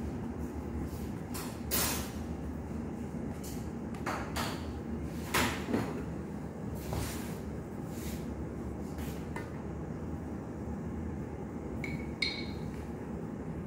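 Scattered light knocks and taps as dough rounds are handled on a steel baking tray on a stainless-steel worktop, over a steady low hum. About twelve seconds in, a glass jar clinks once with a short ring.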